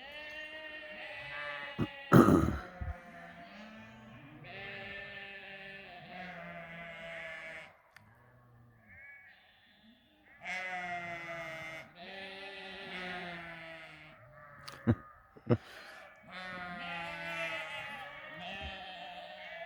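A passing flock of sheep bleating, long overlapping calls one after another with a short lull in the middle. A few sharp knocks cut through, the loudest about two seconds in.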